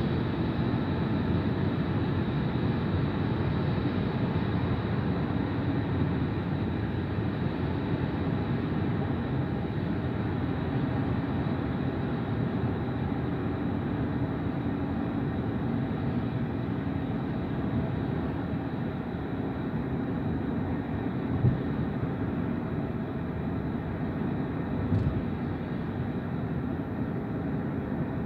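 Steady road and engine noise from inside a moving car's cabin, with two brief knocks a few seconds apart late on.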